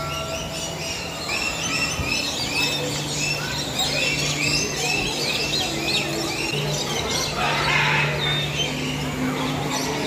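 A flock of small parrots chirping, many short upturned calls tumbling over one another, with a brief harsher burst of noise about three quarters of the way through.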